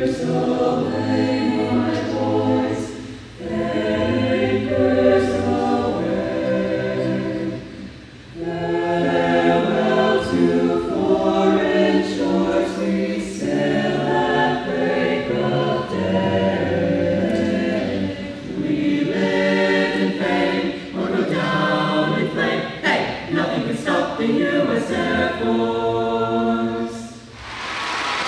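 Mixed-voice student vocal jazz ensemble singing a cappella in parts, a medley of songs honoring the branches of the U.S. military, with short breaks between phrases about three and eight seconds in.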